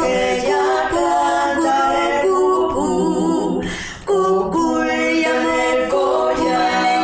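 Female vocal trio singing a cappella in close harmony, with no instruments. The voices break off briefly about four seconds in and then come back together.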